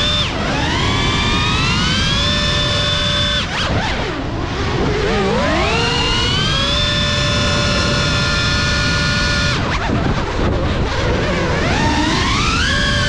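GEPRC Cinelog 35 FPV cinewhoop's brushless motors and ducted propellers whining, the pitch climbing as throttle is pushed and holding high, then dropping away twice when throttle is cut before climbing again. A steady rush of air from the propellers runs under the whine.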